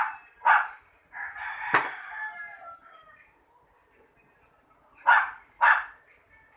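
A rooster crowing close by: one longer crow with falling pitch around the second second, and short loud squawks in pairs at the start and again about five seconds in.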